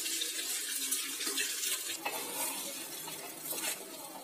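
Wooden spatula stirring cut raw mango pieces and ground spice powder in an aluminium pan, a continuous scraping and shuffling of the pieces, with a faint sizzle from the low flame under the pan.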